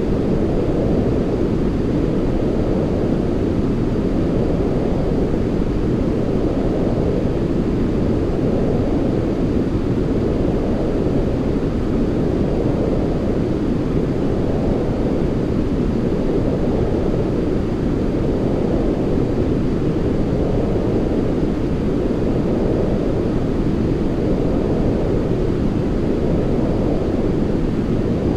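A continuous sleep-noise track: steady, deep-sounding noise with little treble, its upper edge swelling and fading gently about every four seconds.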